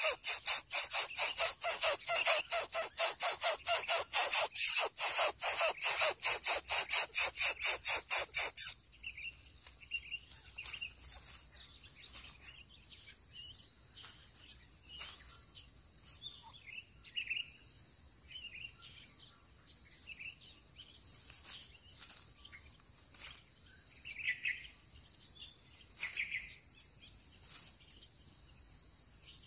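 Coucal chick giving a loud, rapid rasping hiss, about four or five pulses a second, which stops abruptly about nine seconds in. After that a steady high insect drone continues, with faint short bird chirps over it.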